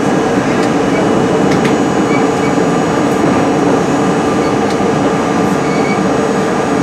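New York City Subway R-32 train heard from inside at the front: a steady rumble with a few faint clicks.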